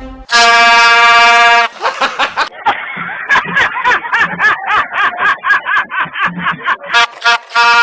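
Truck air horn blasting loudly for about a second and a half. Then come several seconds of excited, yelling voices with laughter, and two short horn blasts near the end.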